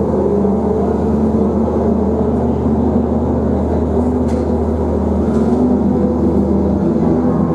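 Live drone music: layered, held tones and a low hum sounding steadily, played in a concrete drain tunnel.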